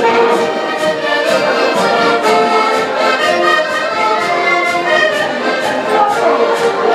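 Accordion music: a tune of held, pitched reed notes played over a steady percussion beat.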